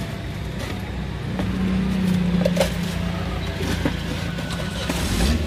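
Steady low rumble of roadside traffic, with a vehicle engine passing by in the first half. A few faint taps of a steel jigger against a plastic jug.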